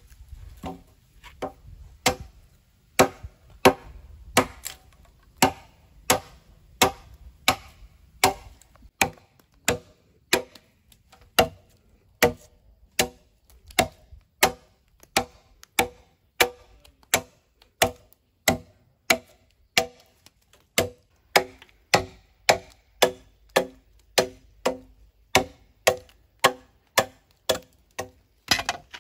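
Steady, repeated blows of a hand tool, about three every two seconds, each a sharp knock with a brief ring.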